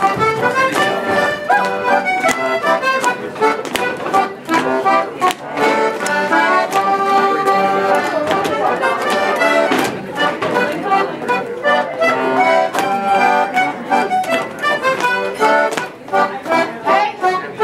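Accordion playing a lively traditional dance tune for rapper sword dancing, with sharp clicks and taps throughout from the dancers' stepping on the wooden floor.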